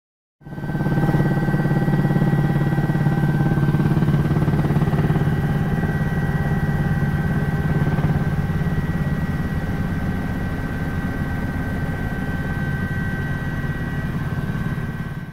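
Helicopter in flight heard from inside the cabin: steady rotor chop and engine drone with a steady high whine on top. It starts abruptly about half a second in and cuts off suddenly at the end.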